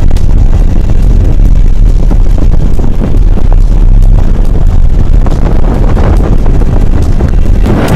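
Strong wind buffeting the camera's microphone: a loud, low, irregular rumble.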